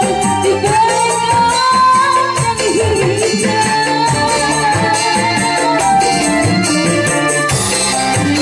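A woman singing a melodious line through a microphone and PA, over live band accompaniment with a kendang hand drum and a steady percussion beat.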